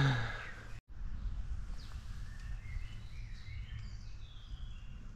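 Faint outdoor background with birds chirping now and then, coming in after the end of a man's voice and a sudden cut about a second in.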